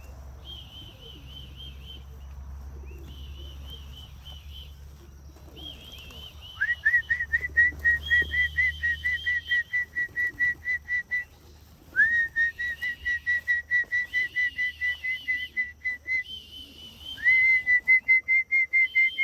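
Whistling to call homing pigeons back to the loft: a warbling trilled whistle repeated in short phrases, and three long runs of rapid, loud pulsed whistle notes, each opening with a rising swoop, starting about a third of the way in.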